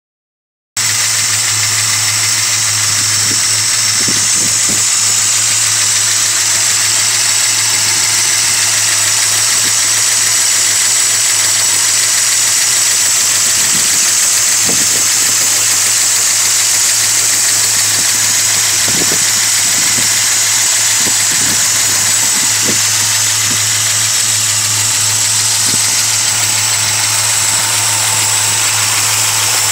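Modified Ford 428 cubic-inch FE big-block V8 with a Holley four-barrel carburetor idling steadily under an open hood. A low, even hum runs under a strong, steady high-pitched hiss.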